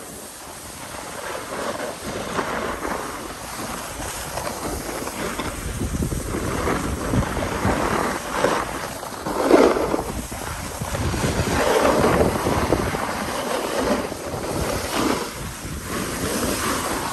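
Wind rushing over the microphone of a snowboarder riding downhill, with the board's edge scraping over packed snow. The rush swells and fades every few seconds, loudest about halfway through.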